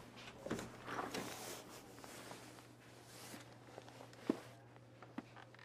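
Faint movement sounds: a few light knocks and clicks, the sharpest about four seconds in, over a steady low hum.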